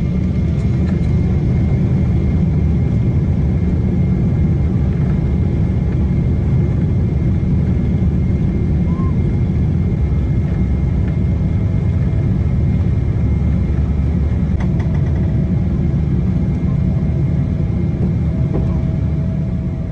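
Jet airliner engines running: a loud, steady low rumble with a faint high whine over it.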